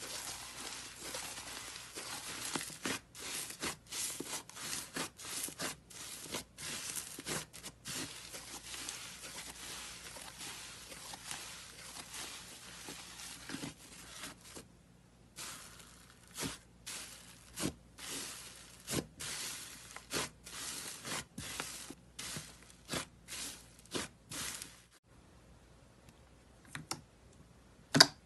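Hands stretching and pulling thick, fluffy slime, giving a dense crackling, tearing sound. After a brief pause it is squeezed in separate crackly squishes about one a second, and a sharp click comes near the end.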